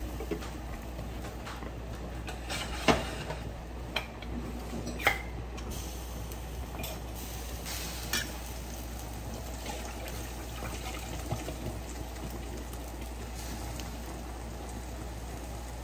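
Large stainless pot of water boiling, a steady bubbling hiss, with a few sharp clinks, the loudest about three and five seconds in.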